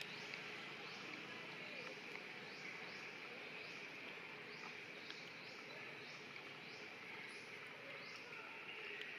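Insects droning steadily outdoors, with a short, high pulsing call repeating roughly once a second.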